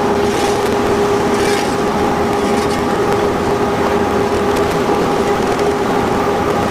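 Machinery of a fly ash brick production line running: a belt conveyor carrying sand and ash mix, with its drive and the plant's motors giving a loud, steady noise over a constant hum.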